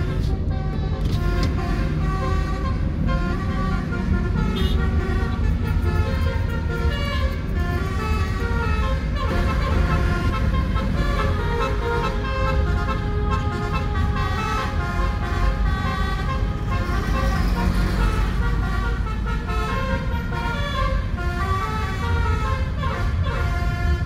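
A tour bus's multi-tone 'telolet' horn playing a tune of changing notes, over the low rumble of traffic heard from inside a following car.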